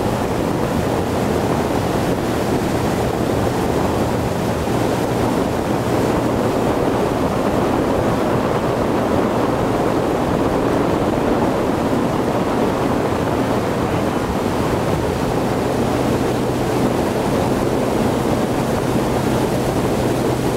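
Ski boat's engine running steadily at speed with a low hum, under a loud rush of water spray from a barefoot skier's feet and the wake, with wind buffeting the microphone.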